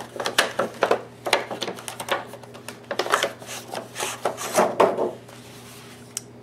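Clear plastic packaging sleeve rustling and crinkling as a foam-packed kit box is slid out of it and handled: irregular scrapes and crackles that die away about five seconds in.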